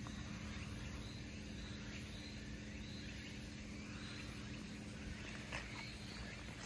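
Quiet outdoor background noise with a faint high-pitched chirp repeating at an even pace, about every half second or so, and a few light ticks near the end.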